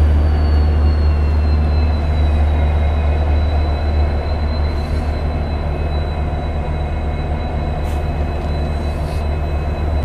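WDP-4D diesel-electric locomotive idling close by, its two-stroke V16 engine giving a deep steady drone under a high turbocharger whine that falls in pitch over the first couple of seconds and then holds steady. A few short faint hisses come over it in the second half.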